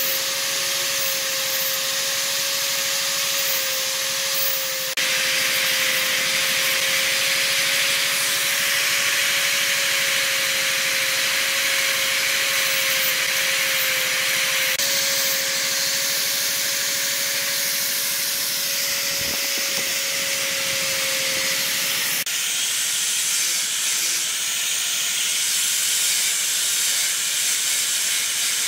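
Electric straight die grinder running with a steady whine, its carbide burr cutting into wood with a continuous hissing rasp. About 22 seconds in the whine stops and an angle grinder with a sanding disc takes over, sanding the wood with a steady hiss.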